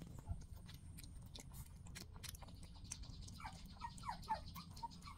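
Puppies lapping milk from a dish, a stream of small wet clicks. About three and a half seconds in comes a quick run of short, high, falling squeaks.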